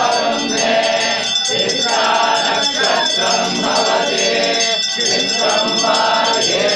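Voices chanting together over a hand bell rung continuously, its metallic ringing sustained underneath, as during a temple puja.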